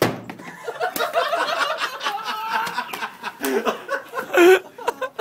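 A sharp thud right at the start as a bare hand karate-chops a full soda can standing on a wooden cable spool, and the can does not give. People then laugh for several seconds, with the loudest burst near the end.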